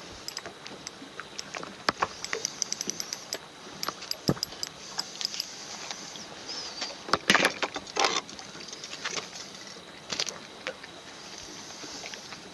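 Irregular handling noise: many light clicks and small rattles, with louder rustling scrapes about seven and eight seconds in and another around ten seconds, over a steady background hiss.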